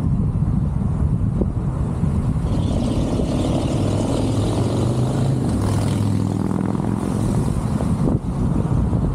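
Wind rushing over a roof-mounted microphone on a moving car, with road and traffic noise. For several seconds in the middle, a nearby vehicle's engine hum rises over it and then fades.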